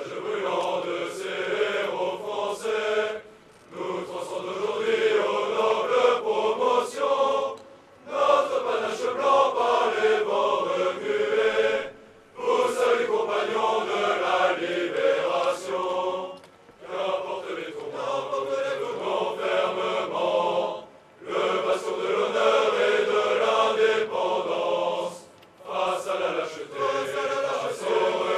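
A massed choir of officer cadets singing a slow, chant-like song together. Its phrases last about four seconds and each is followed by a brief pause for breath.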